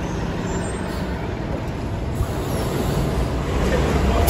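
Hybrid city transit bus running: a steady low rumble that grows louder near the end.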